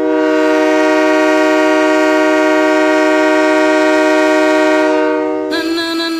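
Kahlenberg K5LA air horn sounding one long, loud, steady chord for about five and a half seconds before fading out. A dance song's opening synth line comes in near the end.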